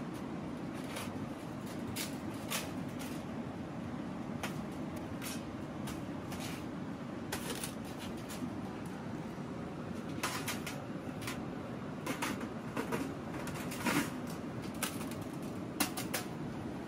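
Irregular clicks and knocks, some in quick clusters, over a steady low rushing noise; the clicks come thicker in the second half.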